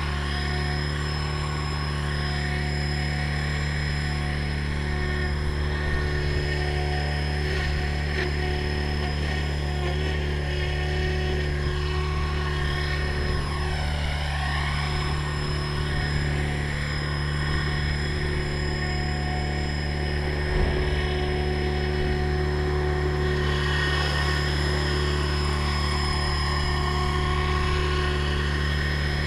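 Radio-controlled model helicopter running, its rotor and motor making a steady whine with a few rises and falls in pitch near the middle. The rotor blades are out of track and it vibrates badly.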